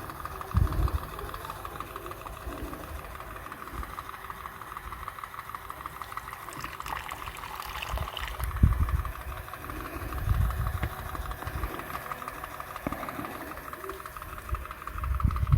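A small motor whirring steadily with a fast, even pulse, with a few low thumps.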